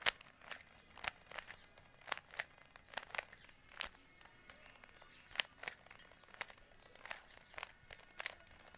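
Sharp plastic clicks of a Rubik's cube's layers being twisted by hand, one quick turn after another, irregular at roughly two or three clicks a second.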